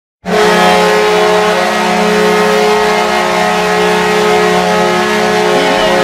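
Minnesota Wild arena goal horn sounding a goal: one long, steady, low horn tone with several overtones, starting abruptly about a quarter second in.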